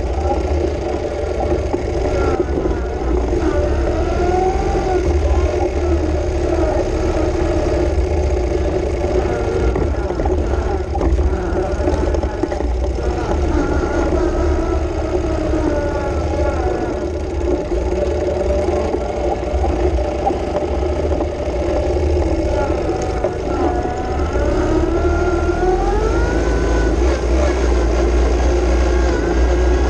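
Ural sidecar motorcycle's flat-twin boxer engine running under way, its pitch rising and falling several times as it speeds up and slows down.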